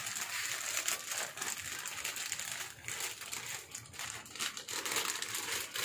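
Clear plastic bag crinkling and crackling as it is handled and pulled open by hand to unwrap a fishing reel, a steady run of small crackles.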